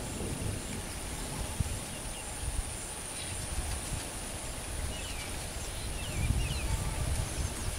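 Outdoor field ambience: an irregular low rumbling noise like wind buffeting the microphone, over a faint steady high whine, with a few faint bird-like chirps about five to six seconds in.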